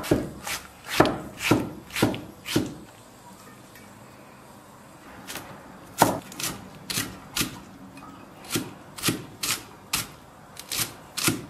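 Chinese cleaver chopping on a thick round wooden chopping board: a run of sharp knocks about two a second as a tomato is diced, a pause of about two seconds, then more knocks, speeding up to two or three a second, as cilantro is chopped.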